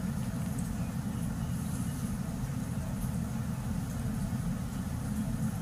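Steady low rumble of background noise, even throughout, with no distinct clicks or events standing out.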